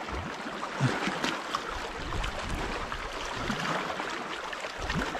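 Small waves lapping and splashing against shoreline rocks, with wind gusting across the microphone from about two seconds in.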